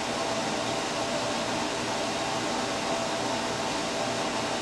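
Steady fan noise: an even whooshing hiss with a faint hum of a few steady tones underneath.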